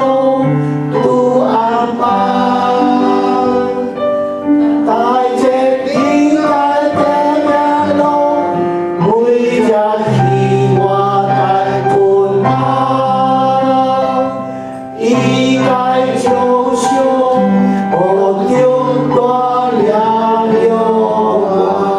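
Christian worship song sung with instrumental accompaniment: voices carrying a slow melody over low held notes.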